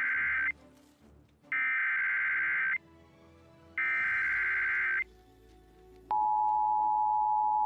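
Emergency Alert System tones on a TV broadcast: three buzzy bursts of the digital SAME header, about a second each with a second's gap between them, the first already under way. About six seconds in the steady two-tone attention signal starts, marking the start of a National Weather Service severe thunderstorm warning.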